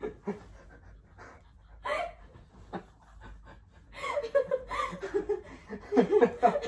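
A man laughing while being tickled, with a woman laughing along: a few short, scattered bursts at first, then a run of rapid, loud laughter from about four seconds in.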